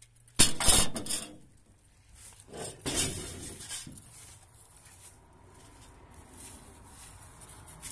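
Loose scrap metal clattering as it is shifted, twice, about half a second and about two and a half seconds in, then a hand rustling and scraping through dry pine needles and compost on a rusty pickup bed floor. The debris is being cleared to check the bed metal for rust.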